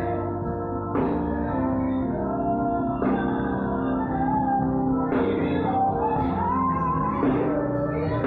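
Live gospel band music: sustained keyboard chords struck anew about every two seconds, with a gliding melodic line, likely a singing voice, over them.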